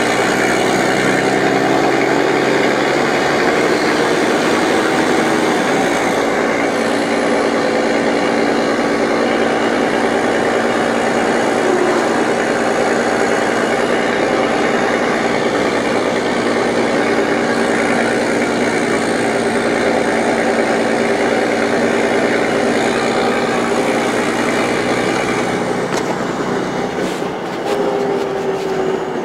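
Mercedes-Benz O-500 MA articulated bus's diesel engine running, its pitch rising over the first few seconds and then holding steady. It has a rough, rotten-sounding rumble, possibly from a holed exhaust.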